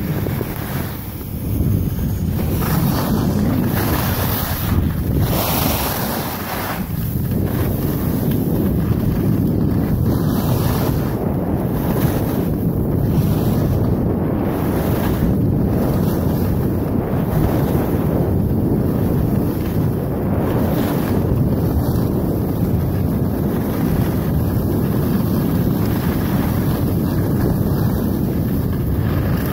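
Wind buffeting the microphone of a camera carried by a skier going downhill: a steady, loud, low rushing noise that swells about a second in and then holds.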